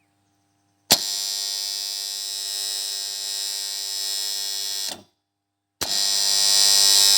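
Three-phase motor starter's contactor pulling in with a click about a second in and buzzing with a steady mains hum. It drops out at about five seconds, then pulls in again and resumes buzzing near the end. The buzz is the fault being fixed: dirt on the contactor's moving armature and contacts, which are cleaned with sandpaper to silence it.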